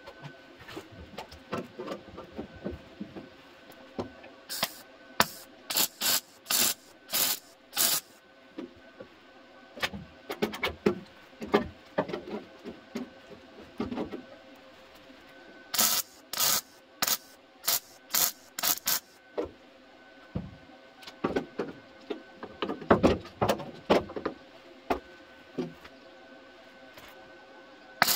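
Welding torch laying a series of short tack welds on thin car-body sheet steel, joining a replacement rear inner wheel arch panel. The welds come as crackling bursts of about a third of a second each, in runs of several with short pauses between.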